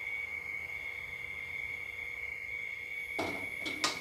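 Steady, high, single-pitched chirring of insects throughout. About three seconds in, two short clattering knocks as the metal wok is set back down on the gas stove with a spatula in it, the second knock the louder.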